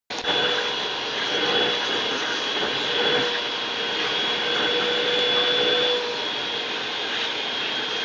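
Vacuum cleaner running steadily: a high whine over rushing air, with suction at the end of its wand as a pug bites at the nozzle.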